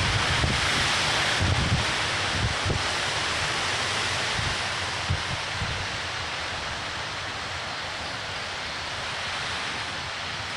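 Hurricane wind and rain: a steady rushing hiss, with gusts buffeting the microphone in the first couple of seconds. The storm eases a little toward the end.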